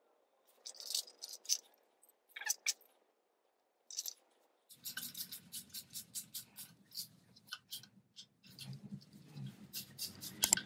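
Light metallic clicks and scrapes as the timing cover is handled and fitted onto a Renault C1J engine block. From about five seconds in, a fast run of small clicks comes as bolts are worked at the base of the cover.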